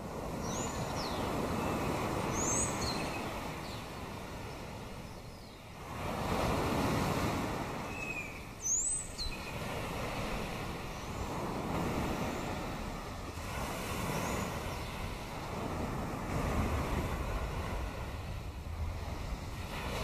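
Water washing against a rocky shore, swelling and ebbing every few seconds, with a few short, high, falling bird calls, most of them in the first half.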